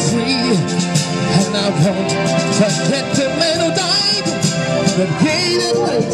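Amplified music from a portable PA speaker: a backing track with a voice singing over it through a microphone.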